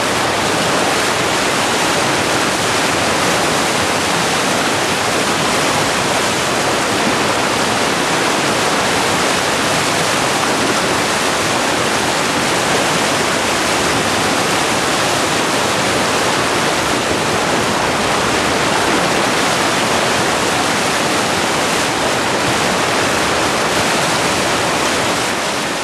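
River whitewater rapids rushing: a loud, steady noise of churning water close to the microphone, unchanging throughout.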